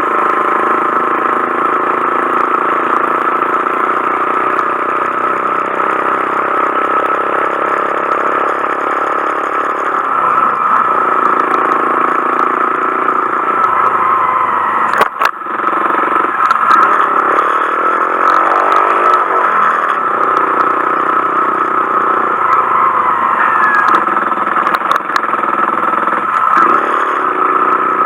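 Honda Monkey 125's single-cylinder four-stroke engine running while the bike is ridden, with a rise in engine pitch as it accelerates a little past the middle.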